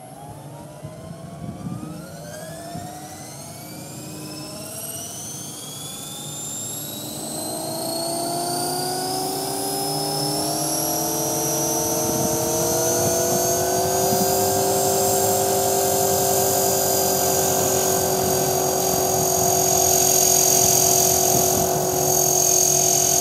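Electric 450-size RC helicopter spooling up with weighted Smartmodel scale blades on a flybarless head. The motor and rotor whine rises steadily in pitch and grows louder for the first dozen seconds or so as the head comes up to speed. It then holds at a steady head speed.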